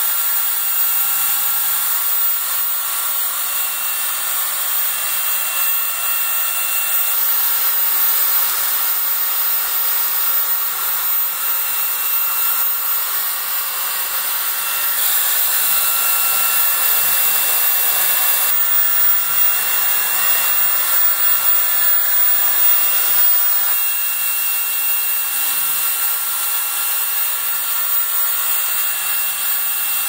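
TOCMOC T185 cordless stick vacuum running with its motorised carpet brush head: a steady high-pitched motor whine over a rush of airflow as the head is pushed across carpet.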